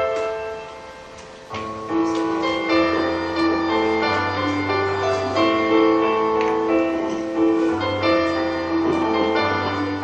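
Slow background piano music: held melody notes over sustained low bass notes, entering fuller about a second and a half in.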